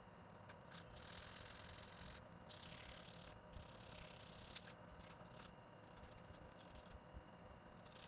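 Faint scraping and rubbing on the small metal frame of an antique stove spark lighter as it is worked by hand, in several short stretches with a few light clicks.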